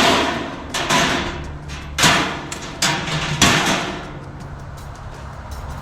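Sheet-metal panels of a galvanized steel chicken nesting box knocking and clanking as they are handled: about five sharp knocks, each with a short ringing tail.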